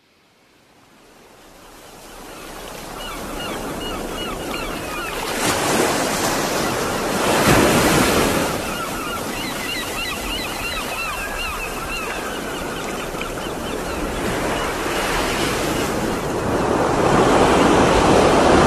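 Ocean surf: a steady rush of waves that fades in over the first few seconds and swells twice, at about six and eight seconds, with high, wavy chirping calls over it.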